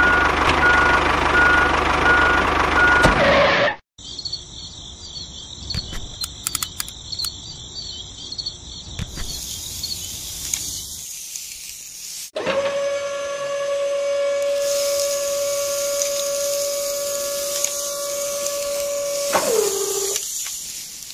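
A string of edited sound effects. First a truck engine runs with a reversing beeper, cutting off after about four seconds. Then comes a high, even chirping like crickets, with a few clicks. From about halfway a steady mechanical whine starts, and it dips in pitch just before the end.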